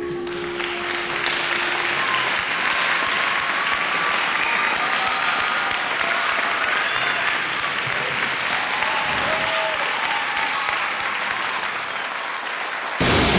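Audience applauding steadily, with the last held sung note fading out in the first two seconds. Just before the end, a sudden loud burst of sound cuts in.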